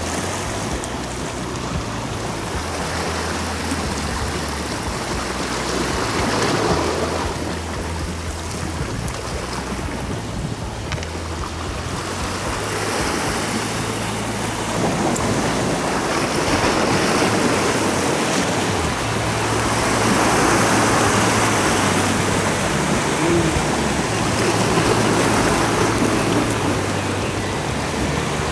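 Sea waves washing and breaking against rocks at the shoreline, the surf swelling and ebbing in several rushes.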